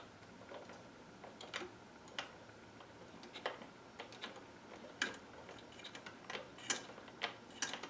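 Irregular sharp mechanical clicks and ticks as the spring motor of a Magnemite 610 portable tape recorder is wound by hand.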